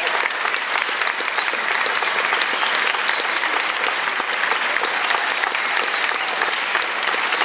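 Audience applauding: a steady mass of hand claps.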